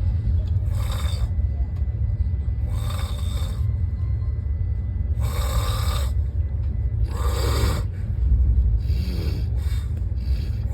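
A person snoring loudly and rhythmically, a rasping breath about every two seconds over a steady low rumble.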